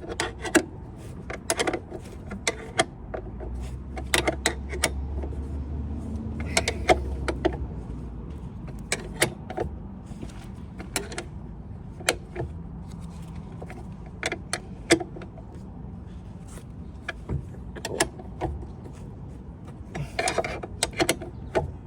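Irregular clicks, knocks and metallic clinks of hand tools and metal brake parts being fitted and tightened.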